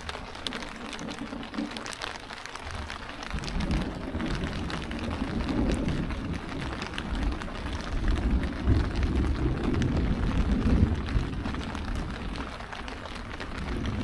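Steady rain falling on a tent with a low rumble of thunder that builds from about three seconds in, is loudest toward the last third, and eases off near the end.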